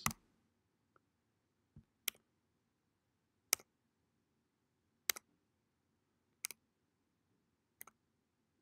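Single sharp computer clicks, six in all, about one every second and a half, advancing a slideshow one line at a time, over faint room tone.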